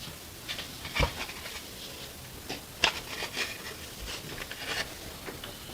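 Parts of a Numatic Henry vacuum cleaner's switch assembly being handled and fitted back into place: scattered light clicks and knocks, the sharpest about a second in and another near three seconds.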